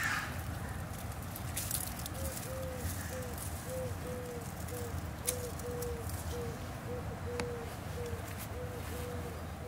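A bird calling a run of short, low hooting notes, about two a second, starting about two seconds in, over a steady low rumble with a few sharp clicks.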